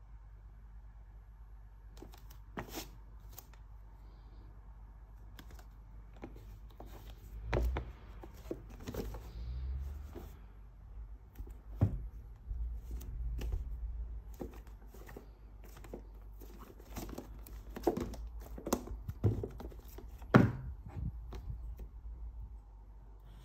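Hands handling a shrink-wrapped cardboard iPad box: the plastic wrap crinkles and rustles, with scattered taps and knocks as the box is turned over and set against the table. The loudest knocks come about a third of the way in, halfway through, and in a cluster near the end.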